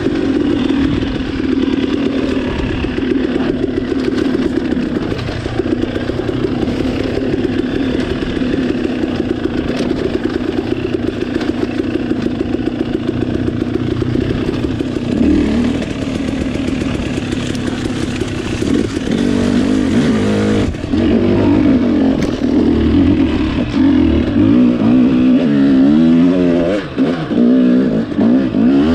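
Off-road dirt bike engine running under load, its pitch rising and falling with the throttle. The revving swings up and down more often in the second half.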